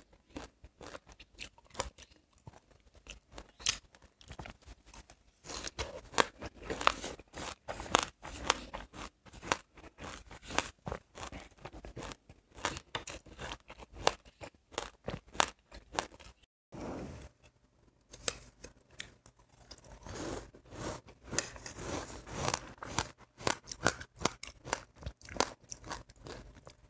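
Close-up chewing of crunchy seeds: a dense run of sharp crackles and crunches. A brief dead gap about two-thirds through marks an edit.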